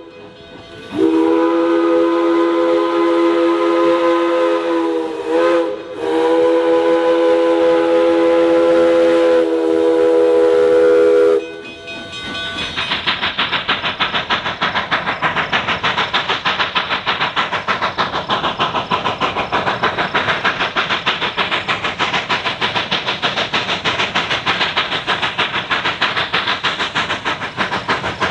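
Narrow-gauge steam locomotive's whistle sounding a chord in two long blasts with a short break between them. After a cut, a narrow-gauge steam locomotive works toward the listener with a steady run of quick exhaust chuffs.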